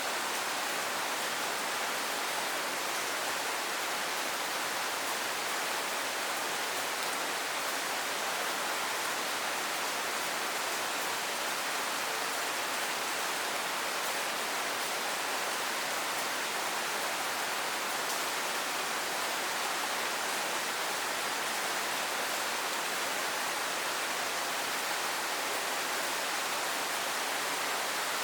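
Steady rain falling: an even, unbroken hiss with no single drops, voices or vehicles standing out.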